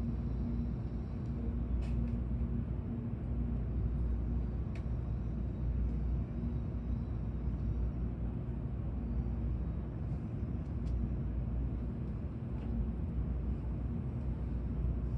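Steady low rumble of a Tokaido Shinkansen train running, heard inside the passenger cabin, with a few faint clicks.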